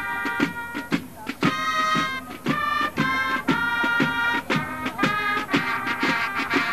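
Marching band music: a melody over a steady drum beat of about two beats a second.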